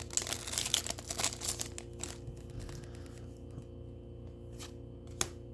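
Foil wrapper of a Pokémon booster pack crinkling and tearing as it is opened by hand, dying down about two seconds in to quieter handling with a few light clicks.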